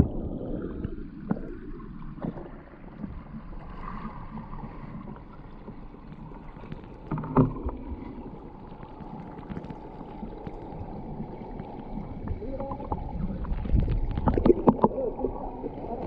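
A low-flowing waterfall: a small stream of water running and gurgling over rocks, with wind rumbling on the microphone. A knock about halfway through and several short knocks near the end.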